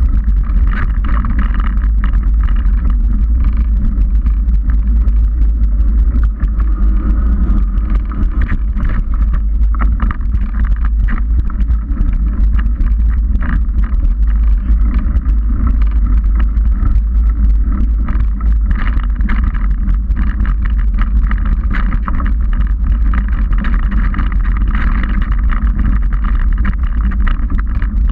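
Trek 29er mountain bike riding along a dirt forest trail: a steady deep rumble of wind and rolling tyres on the camera microphone, with frequent small rattles and knocks as the bike goes over rough ground.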